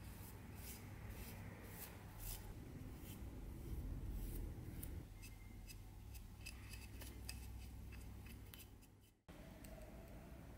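A small flat paintbrush stroking and dabbing liquid finish onto a carved wooden handle: a run of short, faint, scratchy bristle strokes over a low hum.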